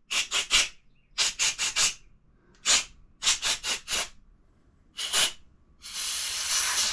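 Can of compressed air blowing out a rifle part: about a dozen short hissing blasts in quick groups of three or four, then one longer blast of about a second near the end.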